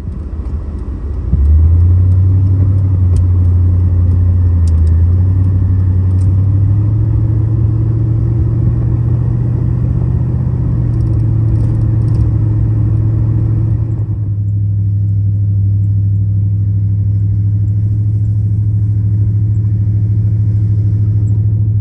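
An engine running steadily, a loud low rumble. Its pitch steps up slightly a few seconds in.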